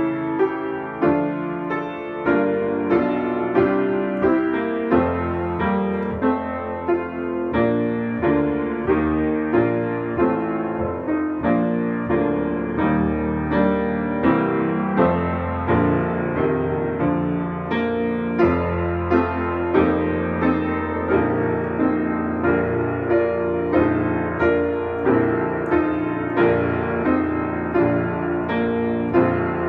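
Grand piano played solo at a slow, even pace, with chords struck about once a second over a sustained bass.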